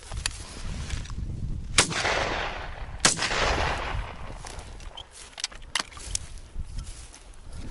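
Two shots from a double-barrelled shotgun, about a second and a quarter apart, each followed by a long rolling echo, with wind rumbling on the microphone; a few rustling steps follow.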